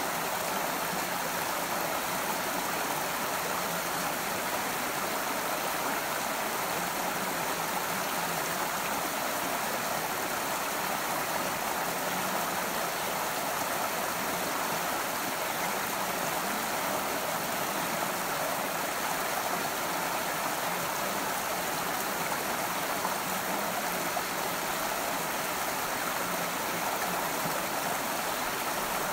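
Rocky forest stream running steadily over stones, a continuous even rush of water.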